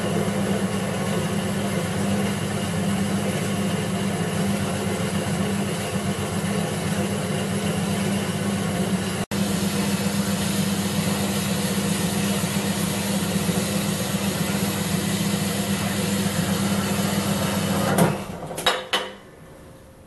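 Horizontal metal-cutting bandsaw running steadily, its blade cutting through square metal tube. The saw stops near the end, followed by two or three metallic clanks.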